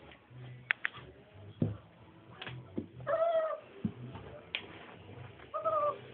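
Four-week-old Scottish Deerhound puppies whimpering while they play: two short, high, arched whines, one about three seconds in and one near the end, with scattered sharp clicks and scuffles in between.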